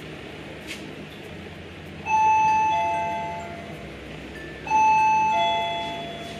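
Electronic ding-dong doorbell chime rung twice: each time a higher note then a lower one, both fading out, the two rings about two and a half seconds apart.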